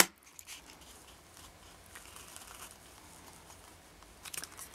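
Sheets of paper being handled, with faint rustling. A sharp tap at the start as a small cardboard box of staples meets the paper, and a few light clicks about four seconds in.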